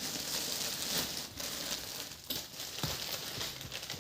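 Rustling and crinkling handling noise, as of packaging being handled, with a couple of light clicks a little over two seconds in and near three seconds in.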